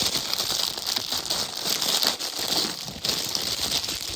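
Packaging crinkling and rustling steadily as an action figure is handled and unwrapped from its mailer.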